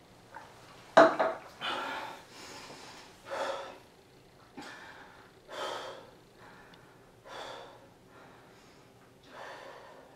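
A man breathing hard between sets of pull-ups: a run of heavy, noisy breaths about every one and a half to two seconds, the loudest and sharpest one about a second in. He is winded from the exercise.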